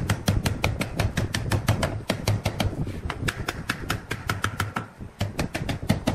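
Small hammer tapping rapidly and evenly, about seven light blows a second, driving thin wooden strips into slots cut along the edge of a glued-up wooden block. The taps grow softer for a moment in the middle and thin out near the end.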